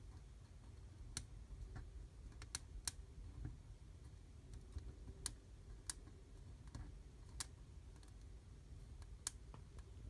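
Burning fir twigs crackling in a fireplace fire: a dozen or so sharp, irregular pops and snaps over a faint low rumble.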